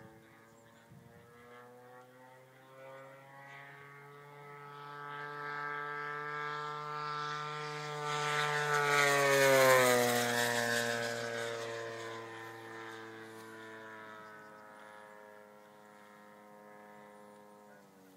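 Radio-controlled scale P-51 Mustang model's engine and propeller in a low fly-by: a steady drone that builds to its loudest about ten seconds in, drops in pitch as the plane passes, then fades away.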